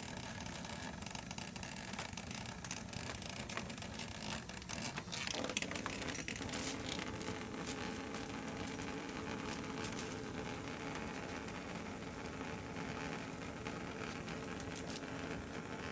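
Battery-powered Oral-B Pulsar vibrating toothbrush buzzing steadily as it lies on a wooden floor. Its tone shifts about five seconds in.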